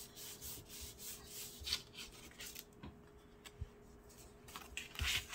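Faint rubbing and rustling of cardstock panels being handled and pressed together on a tabletop, with a few soft taps.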